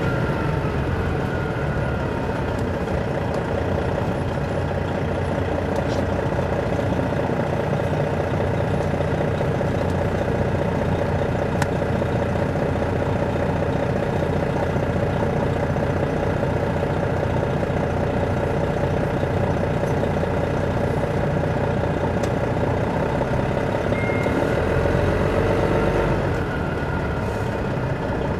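The Detroit Diesel Series 60 straight-six diesel of an MCI D4000 coach running steadily, heard from the rear seats inside the bus. Near the end the engine grows louder for a couple of seconds, then drops back suddenly.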